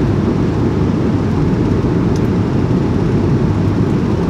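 Jet airliner cabin noise: a steady, even low rumble of engines and airflow.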